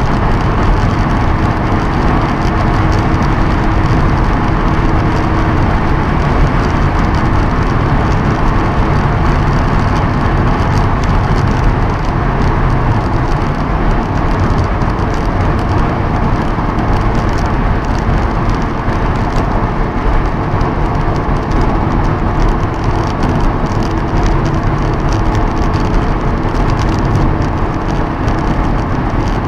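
In-cabin sound of a Honda S2000 cruising at a steady speed: the four-cylinder engine's steady drone mixed with road and wind noise.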